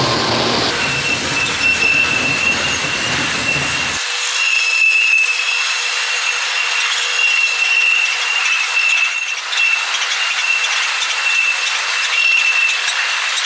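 A freight train of empty grain hopper cars rolling past close by, with a steady high-pitched wheel squeal over the rolling rattle of the wagons. A diesel locomotive's engine runs underneath for the first few seconds, then drops away about four seconds in.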